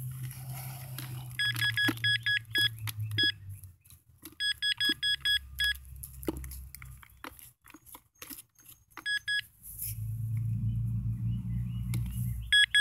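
Handheld Nokta pinpointer beeping in quick runs of short high beeps, about three or four a second, several times over as it is passed across handfuls of dug soil: it is signalling a metal target in the dirt. Soil crumbling and rustling in the gloved hand between the runs, over a low hum.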